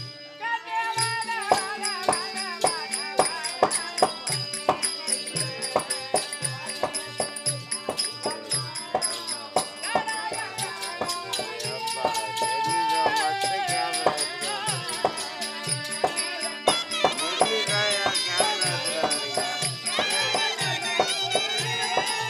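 Therukoothu folk-theatre accompaniment: a barrel-shaped hand drum played in a steady rhythmic beat, with high ringing metal strokes keeping time and a wavering melody line over it. The playing grows a little fuller about three quarters of the way through.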